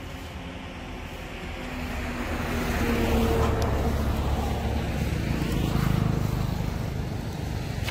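A motor vehicle engine running, growing louder over the first three seconds and then holding steady, its pitch stepping up about three seconds in.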